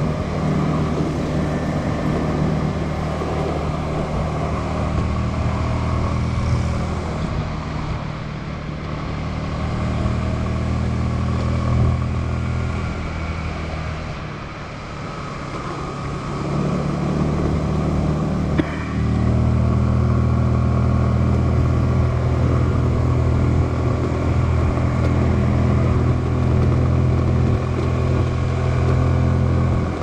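Motorbike engine running under way, heard from the rider's helmet. Its pitch and level ease off twice, then it holds steady and louder for the last third after a brief knock.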